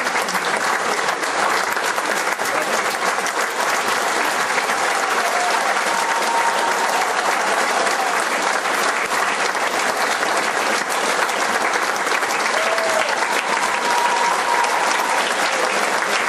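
Audience applauding: a long, steady round of many hands clapping.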